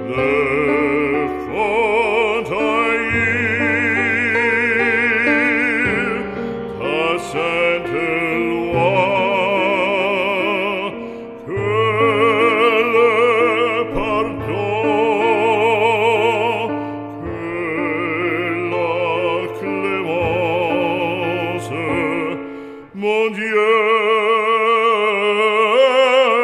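Operatic voice singing a slow French sacred song in long held notes with wide vibrato, over a sustained low accompaniment.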